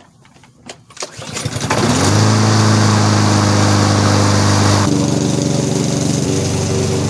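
Craftsman M250 mower's Honda 160cc single-cylinder engine starting: a few light clicks, then it catches about a second and a half in and quickly rises to a steady, loud run. About five seconds in its tone drops slightly and it keeps running evenly.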